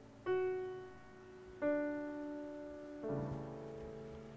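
Solo grand piano playing slowly: three separate notes or chords struck about a second and a half apart, each left to ring and fade.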